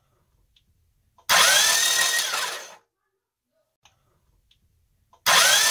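Starter motor cranking a head-off Honda B21A1 engine with no timing belt, spinning freely without compression: a whine that rises then falls over about a second and a half, with a second burst starting near the end. The engine turns over even though its crankshaft is cracked completely in half.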